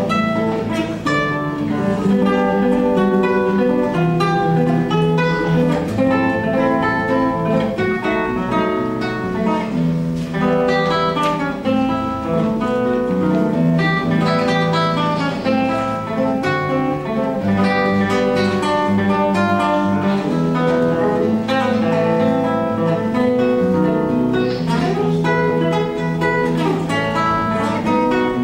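Solo instrumental piece played on a plucked string instrument: a continuous flow of picked notes over lower held notes.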